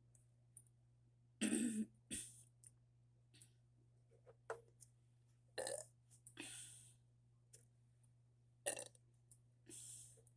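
A woman burping after drinking Coke and eating marshmallows: one loud, deep burp about a second and a half in, then a few shorter burps and breathy exhales spaced through the rest.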